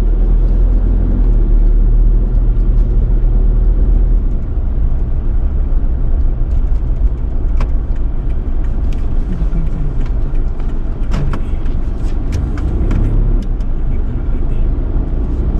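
Car driving slowly, its engine and road rumble heard from inside the cabin, heaviest for the first few seconds and then easing. A few faint clicks in the middle.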